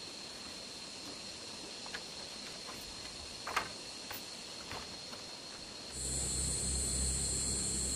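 A steady, high insect drone with a few light taps and rustles from cord being worked around bamboo poles. About six seconds in, it changes abruptly to a louder, higher insect buzz over a low rumble.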